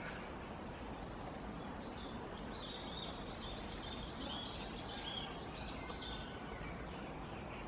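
A bird sings a run of about a dozen quick, repeated high notes, roughly three a second, starting about two seconds in and lasting some four seconds. Steady low background noise runs underneath.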